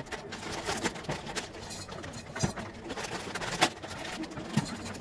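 Scattered light knocks and clinks, about five standing out, from a stainless steel tumbler and other items being handled on a kitchen counter.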